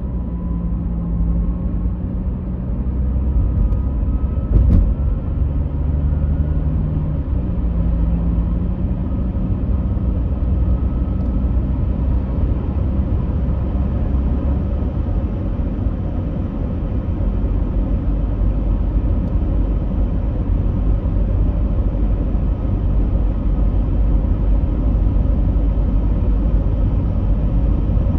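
Steady low rumbling noise, with a hum in the first several seconds and a single click about five seconds in.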